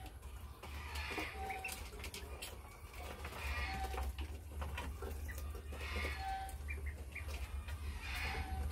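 Ducklings peeping with short high chirps while they peck grain from a plastic feeder dish, with scattered sharp clicks of bills against the feed and dish. A steady low hum runs underneath.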